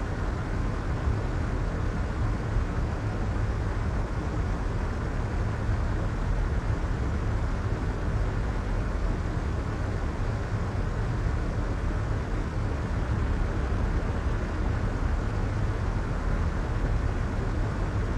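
Soft white noise: a steady, unbroken hiss weighted toward the low end, so it sounds like a deep, muffled rush rather than a bright hiss.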